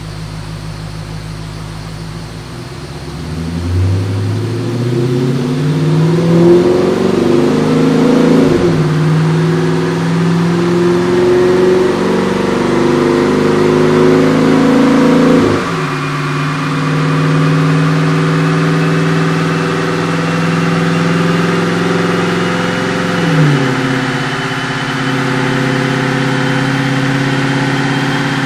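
2009 Dodge Challenger's 5.7-litre V8 through a MagnaFlow Competition Series cat-back exhaust, under load on a chassis dyno. It starts near idle, pulls up in pitch about three seconds in, then drops in pitch at three upshifts, at about 8, 15½ and 23 seconds. A thin whine climbs steadily under it as speed builds.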